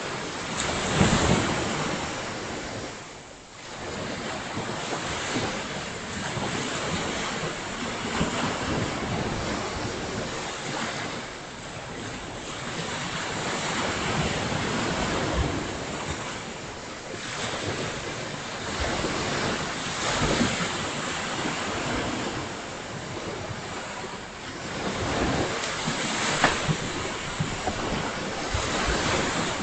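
Surf washing onto a beach in repeated swells that build and ease every few seconds, with wind gusting on the microphone.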